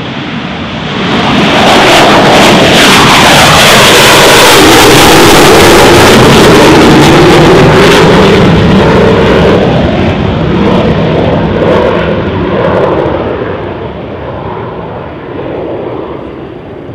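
Sukhoi fighter jet taking off and climbing away: very loud jet engine noise that swells about a second in, holds for several seconds, then fades as the aircraft climbs out.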